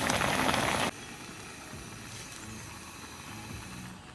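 Pot of instant noodles and eggs boiling hard on a gas camp stove, a dense bubbling crackle that cuts off suddenly about a second in. A much quieter, steady low hum follows.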